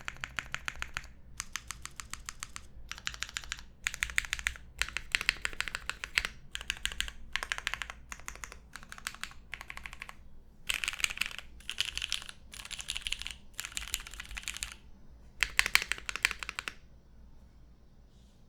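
Gasket-mounted mechanical keyboard with no foam inside, with lubed vintage Cherry MX Black linear switches on an aluminium plate, GMK keycaps and a polished stainless steel bottom case, typed on quickly. The typing comes in runs of one to two seconds with short pauses between, and stops a little before the end.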